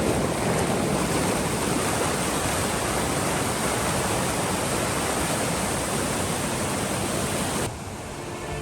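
Rushing mountain river water, a steady dense rush of noise. Near the end it drops abruptly to a quieter, duller rush.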